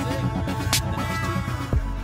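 Electronic outro music with a steady beat and a deep bass line, with one sharp hit about a third of the way through.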